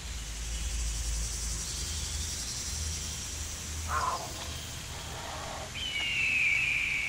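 Tropical jungle ambience: a steady high hiss of insects over a low rumble, with a short animal call about four seconds in and a long, falling whistled bird call from about six seconds.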